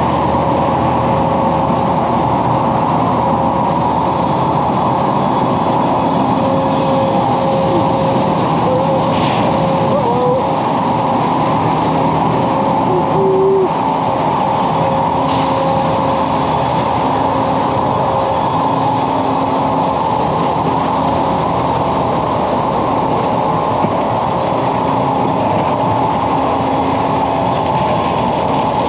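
Big band saw head rig and sawmill machinery running loudly and steadily, with a higher hiss that comes in for several seconds at a time, about four seconds in, again near the middle and near the end.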